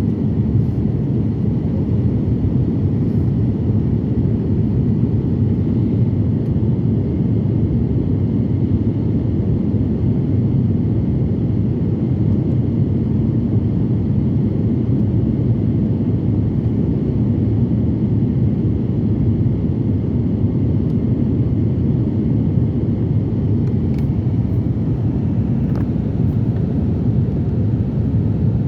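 Steady low rumble of an airliner's engines and running noise heard from inside the passenger cabin, even throughout, with a couple of faint ticks near the end.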